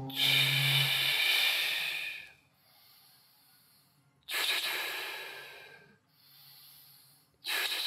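A man breathing heavily, lying on his back right after a set of leg raises: three long, loud rushes of breath, about three and a half seconds apart, each fading away.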